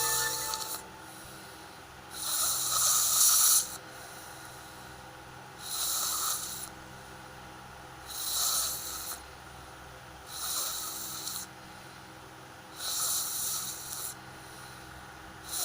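A woman snoring heavily in sleep, one loud snore about every two and a half seconds with quieter breathing between.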